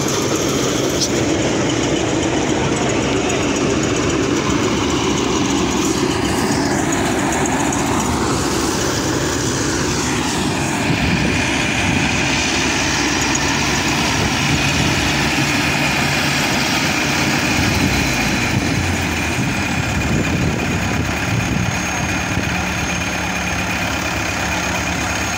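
Diesel engines of a tracked combine harvester and a Mahindra tractor running steadily at close range while the harvester unloads grain. A steady high whine comes in about eleven seconds in.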